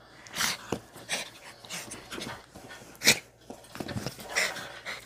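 Bichon Frise panting in rough play close to the microphone, with irregular rustles of fur and fabric and one sharp bump about three seconds in.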